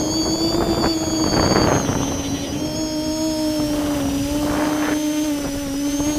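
Multirotor drone's electric motors and propellers heard from a camera on board: a steady, high-pitched whine with a rush of air over it, strongest about a second in and again near the end, as the drone climbs.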